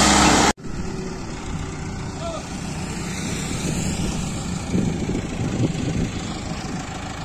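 Diesel engine of an Escorts Hydra crane running loud and close, cut off abruptly about half a second in. After that comes a quieter, steady engine rumble with outdoor noise and a couple of brief louder bumps about five seconds in.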